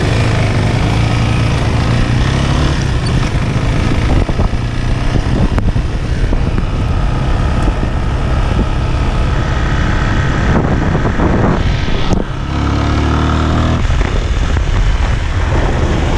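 Motor vehicle driving along, its engine running steadily under continuous road noise and small rattles, with a brief dip and change in engine note about twelve seconds in.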